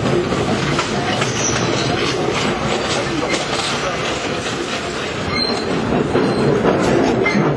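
R17 New York City subway car running along the track, its steel wheels clattering over the rail joints, with a brief light wheel squeal about five seconds in.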